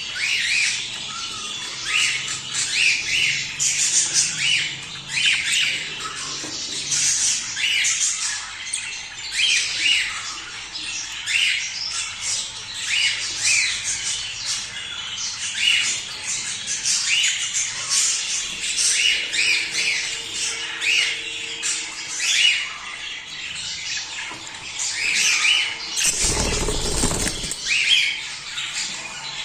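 A group of budgerigars chattering, with many short, quick chirps and squawks overlapping without pause. Near the end comes a brief rush of noise, about a second and a half long.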